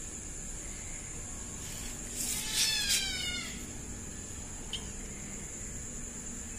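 Kitten meowing once, a call of about a second that falls in pitch.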